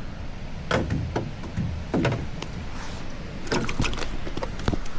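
Scattered knocks and clatter over a low rumble, from the handling of a freshly landed bass and fishing gear.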